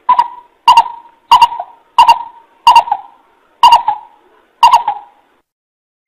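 Coucal (bìm bịp) calling: a series of seven hooting notes, about one every two-thirds of a second, the last two spaced further apart. It is the coucal call used as a decoy to lure other coucals.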